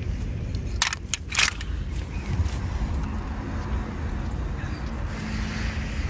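A few sharp clicks about a second in, over a steady low outdoor rumble.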